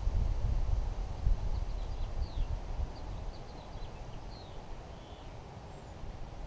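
Wind buffeting the microphone, easing off about halfway through, with a series of short, high bird chirps in the middle.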